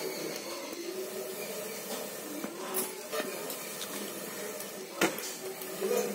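Air blown through a blow pipe into a wood fire in a clay chulha stove, making a steady hissing rush. The burning sticks crackle, with a sharp snap about three seconds in and another about five seconds in.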